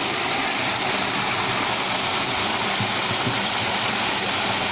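Water rushing steadily through the opened concrete sluice gate of a fishpond dike as the pond is drained.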